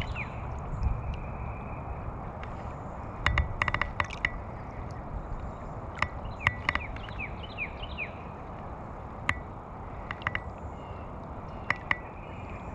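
River ambience: a low, steady rumble of current and wind on the microphone, with a bird's short falling chirps and scattered sharp clicks, several in a quick run about three to four seconds in.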